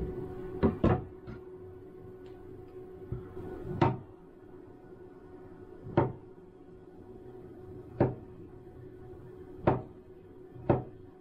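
Chef's knife cutting through an avocado and knocking down onto a wooden cutting board: single sharp knocks every second or two, over a steady low hum.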